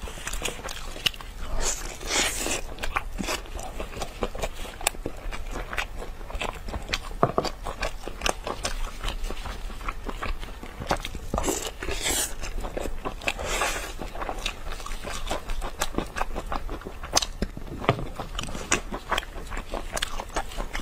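Close-miked eating sounds: a person biting into and chewing sticky, sauce-glazed rib meat, with many sharp wet mouth clicks and smacks and a few longer, noisier stretches.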